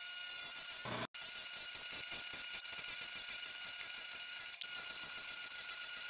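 Benchtop drill press running with a 1-inch bit boring into a clamped MDF block: a steady hiss with a constant high whine, which cuts out briefly about a second in.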